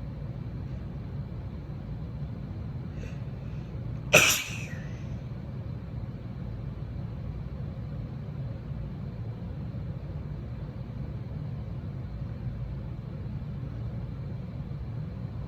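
A woman's single wet hayfever sneeze about four seconds in, with a faint catch of breath about a second before it, over a steady low rumble.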